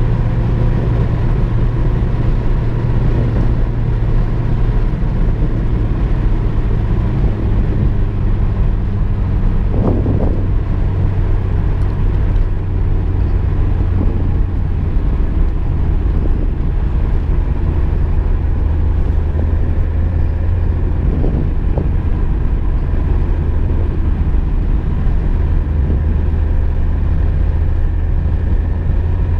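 VW Golf II heard from inside the cabin while driving: a steady low engine drone with road noise. About ten seconds in there is a brief disturbance, and the engine note settles slightly lower after it.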